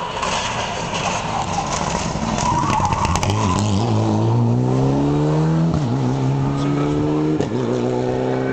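Rally car at full throttle through a junction: engine revs climb steadily and are cut by two quick upshifts in the last few seconds.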